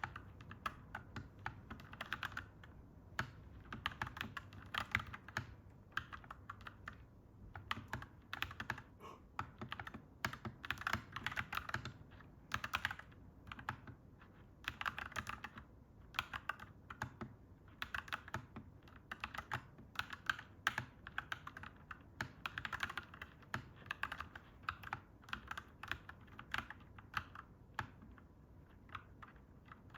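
Clacky mechanical keyboard being typed on in quick bursts of keystrokes with short pauses between them, over a faint low steady rumble.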